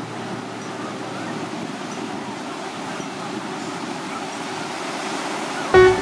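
Steady, even rushing noise of water, without distinct events. Plucked-string music comes in near the end.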